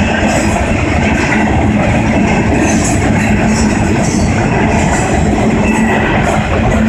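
Freight train cars rolling past close by: a loud, steady rumble of steel wheels on rail, with scattered clicks and clatter from the wheels and couplers.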